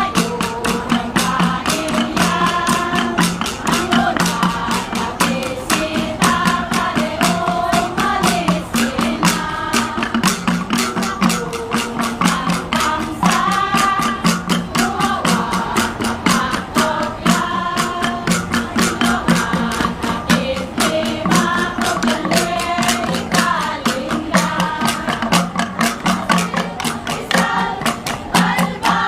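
Kalinga gongs beaten in a quick, steady rhythm, with a group singing a salidummay melody over them.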